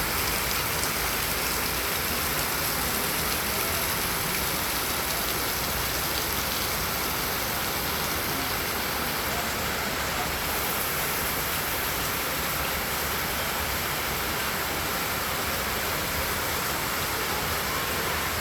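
Heavy rain falling, a steady even downpour without letup.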